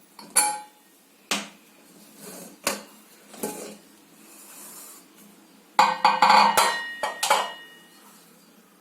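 Metal clanks of a stovetop pressure cooker's lid being unlocked and lifted off after the pressure has been released: four separate knocks, then a busier clatter with brief metallic ringing about six seconds in.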